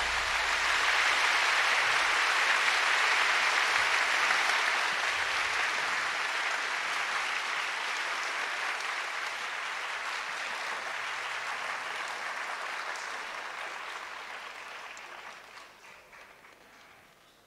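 Large concert audience applauding at the end of a song, the applause fading out steadily until it is nearly gone near the end.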